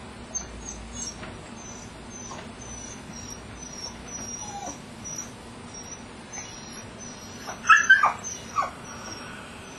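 Mastiff whining: a thin, high whine repeating two or three times a second, with a few louder short, falling whimpers near the end.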